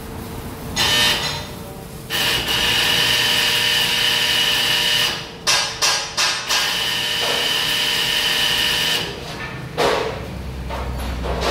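Handheld electric power tool working steel, running with a steady high whine in two long stretches, with several short bursts between them.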